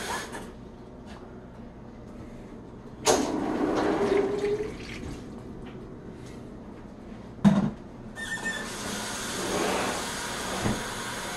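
Water running into a container, its pitch rising slightly as it fills, with a sharp knock midway and a second stretch of running water near the end.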